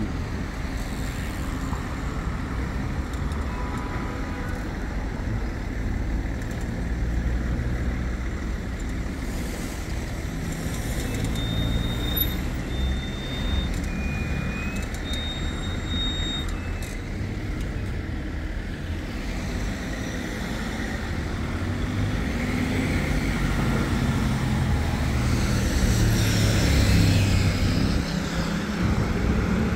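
Road traffic on a city street: motor vehicles running and passing with a steady low rumble, growing louder near the end as a vehicle passes close. A few brief high-pitched tones sound about midway.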